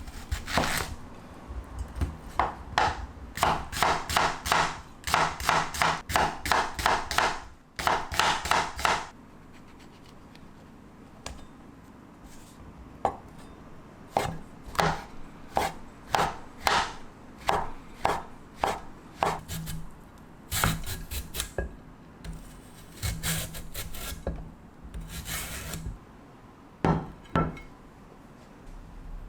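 Kitchen knife chopping vegetables on a cutting board, in quick runs of even strokes about three a second, with short pauses between runs.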